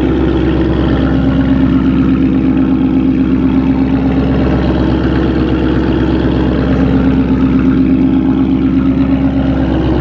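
Warm 2019 Ford Mustang GT's 5.0 L V8 idling steadily through a full Roush cat-back exhaust with X-pipe, a raspy rather than deep idle note.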